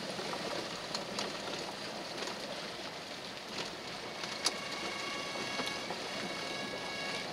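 Jeep driving slowly on a wet gravel road, heard from inside: steady tyre and road noise with scattered ticks. About halfway through, a faint steady high tone joins in.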